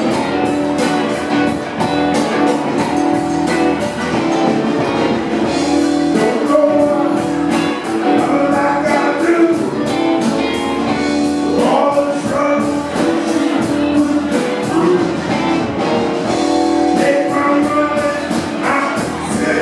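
Live rock band playing: electric guitars and keyboard over a steady drum beat with hand percussion, a chord held underneath.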